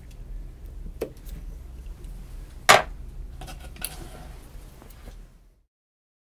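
Hands working a fishing net: a few light clicks and handling noises, with one sharp knock nearly three seconds in, over a low hum. The sound fades out to silence about five and a half seconds in.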